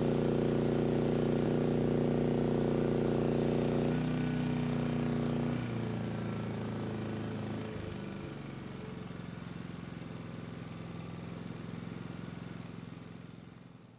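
MAXPEEDINGRODS MXR5500 inverter generator running under a 4,000-watt load. About four and six seconds in its engine slows in steps as the load is switched off, settling to a lower, quieter running speed. The sound fades out near the end.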